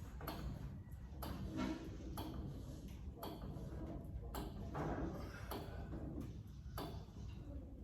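Hydraulic jack being pumped under a car, with a click on each stroke about once a second as it builds pressure to lift the chassis.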